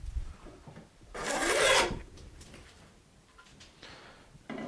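Metal bench plane taking a heavy cut along a board: one long shaving stroke about a second in, the deeper sound of a thick shaving.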